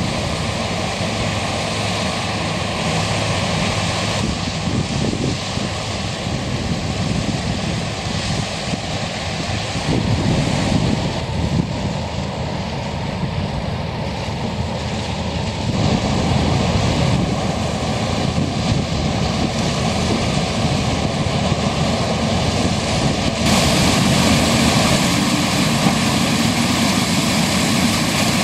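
New Holland CX 7090 combine harvester running while harvesting corn: a steady engine and machinery noise, shifting abruptly in tone and level several times.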